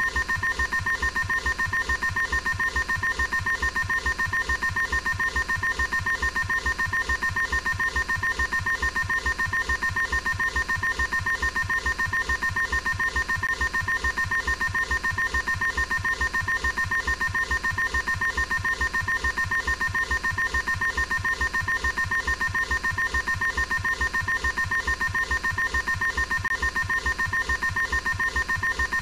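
Electronic phone alarm tone: two steady pitches sounding together, pulsing rapidly and evenly without a break.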